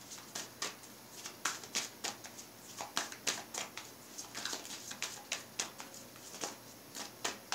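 A deck of reading cards being shuffled by hand: a string of soft, irregular flicks and taps, several a second.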